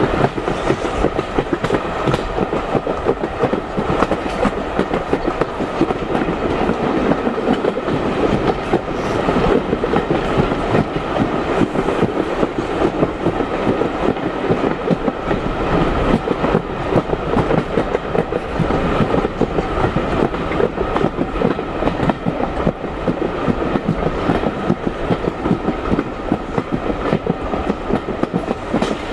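Steam-hauled passenger train running steadily, heard from a carriage: a continuous rumble of the coaches with wheels clicking over the rail joints.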